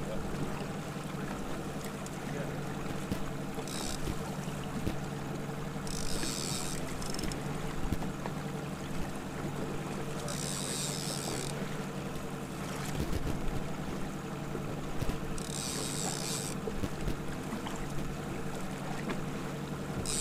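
Outboard motor running steadily at trolling speed on a fishing boat, a low even hum. A short hiss comes back every four or five seconds.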